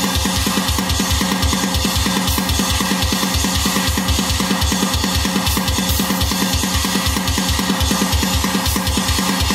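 A heavy-metal song playing from a Kenwood DNN991HD head unit through the car's speakers. Guitar runs over a rapid, even kick-drum beat of about six or seven thumps a second.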